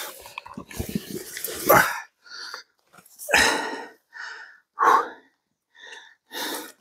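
A man breathing hard in a run of short, rough breaths, typical of being winded after a strenuous effort.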